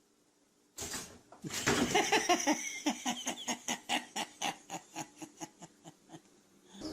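A person laughing: a sudden outburst, then a long run of short laughs, about four a second, that gradually fade.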